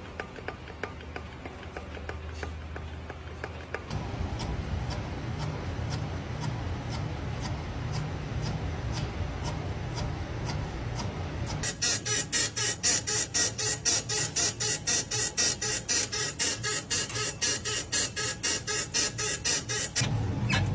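Car running with a regular ticking. About twelve seconds in it gives way to a loud, fast, rhythmic metallic clicking or squeaking of about five strokes a second, the kind of noise that signals a mechanical fault.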